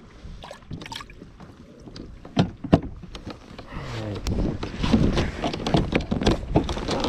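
Handling noises on a plastic fishing kayak: a few sharp knocks in the first three seconds, then busier clatter and rustling as the cooler lid is shut and the seat frame is handled.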